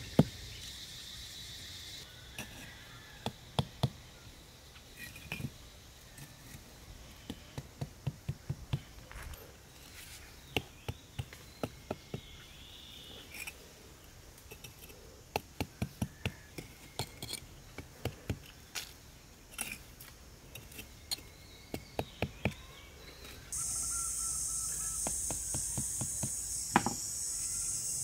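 Runs of sharp knocks, several a second, of a hand tool striking wood, over a steady high chirring of insects. Near the end the cricket chorus becomes much louder and the knocking thins out.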